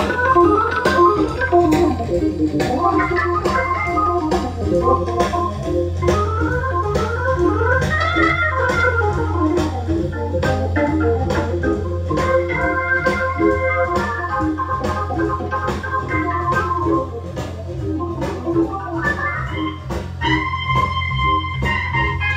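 Music with sustained keyboard chords and a steady beat, played through a single 8-inch Electro-Voice SP8B coaxial driver in a Gough speaker enclosure, driven by a 1957 Realistic vacuum-tube amplifier and heard in the room. A steady low drone runs underneath.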